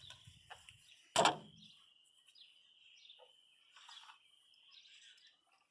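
A single sharp knock about a second in, from hand tools working at the truck's battery terminal, with a few lighter clicks after it. A steady high chirring with chirps, from insects and birds outdoors, runs underneath.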